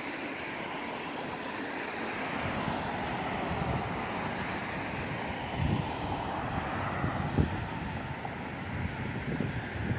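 Road traffic: a minivan driving past, its tyre and engine noise swelling and fading, with a few short gusts of wind buffeting the microphone in the second half.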